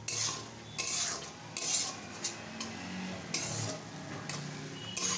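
A spatula stirring and scraping around a metal kadai, in short strokes just under a second apart, over the steady sizzle of garlic, bay leaf and green chillies frying in hot oil.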